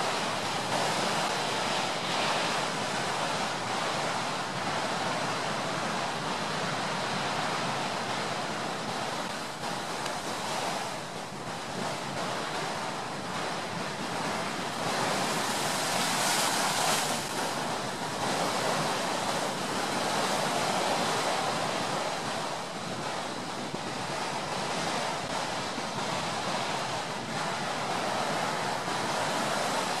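Ocean waves washing in and out, blended with steady brown noise: a continuous rushing that swells and ebbs every few seconds, loudest about sixteen seconds in.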